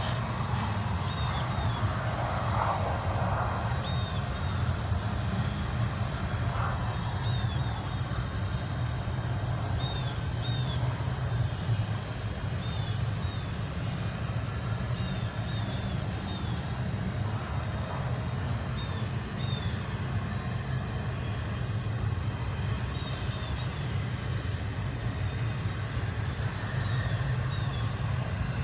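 Double-stack container freight train rolling past: a steady low rumble of wheels on rail. Faint short high squeaks come in pairs every couple of seconds.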